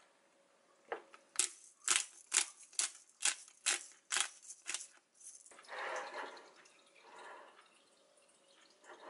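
Handheld black-pepper grinder being twisted over a bowl, about ten gritty crunches roughly two a second, then softer rustling.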